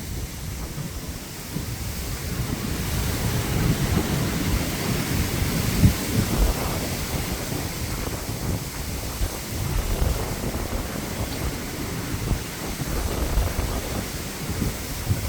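Strong wind buffeting the microphone in gusts: an uneven low rumble over a steady rushing hiss, strongest about four to six seconds in.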